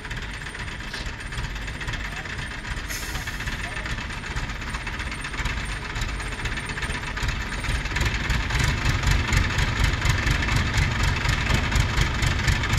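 Mobile crane's diesel engine running while it holds a suspended weaving machine. The engine grows louder about eight seconds in, with a fast, even pulsing.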